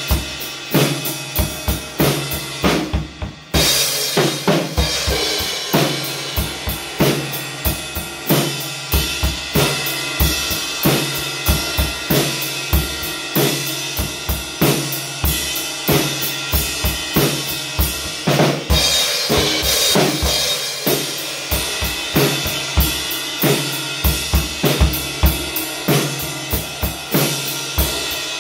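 Acoustic drum kit played at a steady beat: bass drum, snare and tom strikes under ringing cymbals, with a brief break about three seconds in before the playing picks up again.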